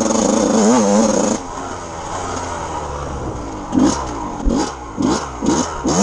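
Yamaha YZ125 two-stroke dirt bike engine revving under way; the throttle shuts off about a second and a half in. Near the end come five quick throttle blips in about two seconds.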